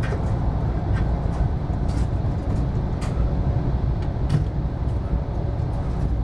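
E4 series Max double-decker Shinkansen running, heard from inside the passenger car: a steady low rumble with a few short clicks.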